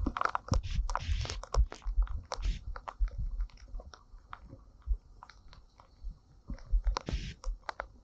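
Irregular close taps and clicks of rain striking the camera, with wind buffeting the microphone in a low rumble during a tropical-storm downpour.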